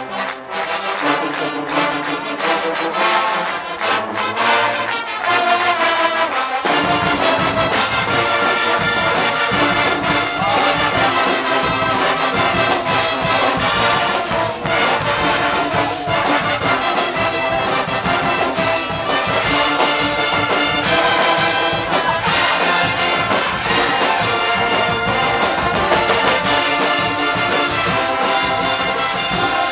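Guggenmusik band playing live: a loud, brassy wall of trumpets, trombones and sousaphones over bass drums, snare and crashing cymbals. About seven seconds in, the sound fills out with a heavy low end as the full drum and bass section comes in.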